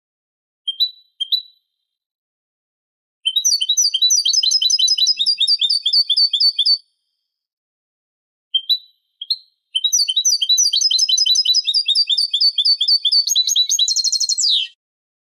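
European goldfinch singing on a Málaga-style song recording made to tutor young goldfinches and hybrids. There are two short call notes about a second in, then a fast run of repeated twittering notes for about three and a half seconds. A few more calls come near the nine-second mark, then a second long twittering run ends in a quick high flourish near the end.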